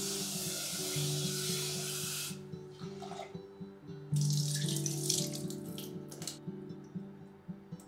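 Kitchen tap running water into an earthenware donabe pot of rice for about two seconds to cover the rice. About four seconds in, the cloudy rinse water is poured quickly out of the pot into a stainless steel sink for about two seconds. Background music plays underneath.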